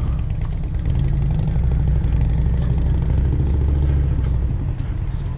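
Motorcycle engine running steadily at low revs, its low end easing off about four and a half seconds in.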